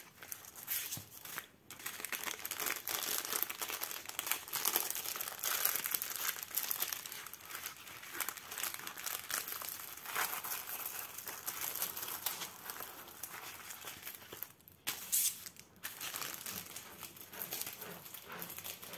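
Diamond painting canvas and its clear plastic cover crinkling as it is handled, folded and rolled up, with brief pauses.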